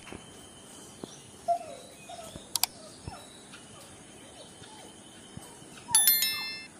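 Quiet outdoor ambience with a few faint chirps. It is broken by several sharp clicks in the first three seconds, then a bright bell chime about six seconds in that rings briefly and fades: the click and bell sound effects of a subscribe-button and notification-bell animation.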